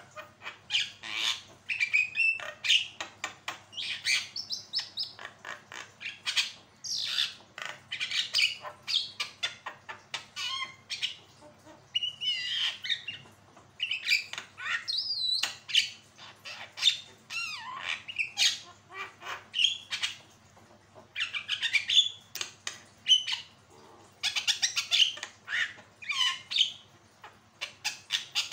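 Javan myna (jalak kebo) in full song: a fast, unbroken run of harsh squawks, clicks and short whistled notes, some of them gliding in pitch.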